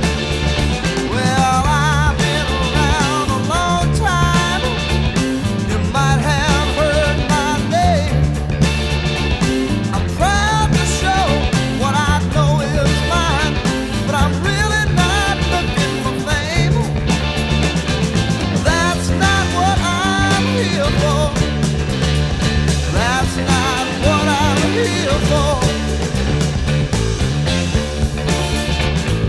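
Blues-rock song with a full band, and a Gibson EB-0 electric bass playing a prominent line through a studio compressor. High melodic lines with bends and vibrato sit over a steady low bass part.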